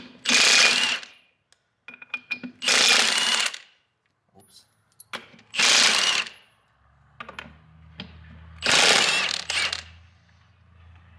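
Cordless impact wrench (Milwaukee Fuel) hammering lug nuts loose on a tractor's rear wheel hub, in four bursts of about a second each with short pauses between. A low steady hum comes in about two-thirds of the way through.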